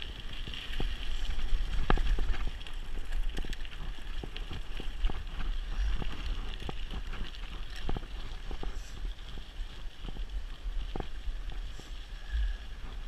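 Mountain bike rolling down a road and onto a gravel trail, with wind buffeting the handlebar-mounted camera's microphone in a steady rumble. Frequent sharp clicks and rattles come from the bike jolting over the rough surface.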